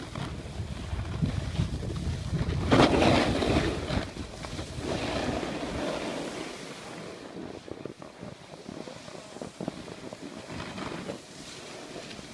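Wind buffeting the microphone of a phone carried down a ski slope, mixed with the hiss and scrape of sliding over packed snow. The scrape is loudest in a burst about three seconds in, and the low wind rumble dies away about halfway through.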